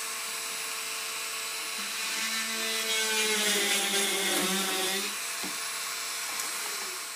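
Small handheld corded rotary tool running with a steady high whine. From about two seconds in to about five seconds in it bites into a small plywood piece, and the sound grows louder with a lower tone beneath it.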